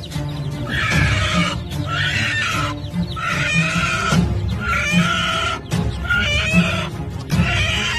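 Music with a steady beat, overlaid with a repeated call about six times, roughly every second and a half.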